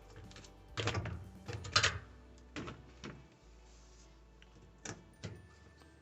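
Half a dozen short knocks and scrapes, unevenly spaced, the loudest about two seconds in.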